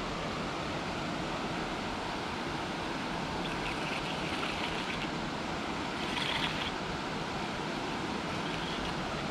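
Steady rushing of a river's flowing water, with two short, higher, hissy sounds about four and six seconds in.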